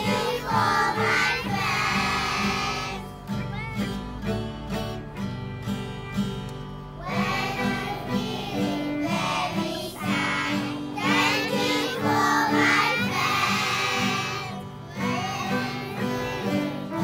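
A group of young children singing a song in unison to acoustic guitar accompaniment. About three seconds in, the voices stop for about four seconds while the guitar keeps playing, then the singing comes back.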